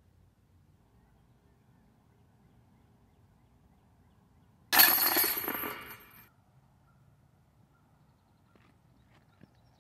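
A flying disc strikes the hanging chains of an Innova DISCatcher disc golf basket: a sudden metallic jangle of chains, about five seconds in, that rings and dies away over about a second and a half.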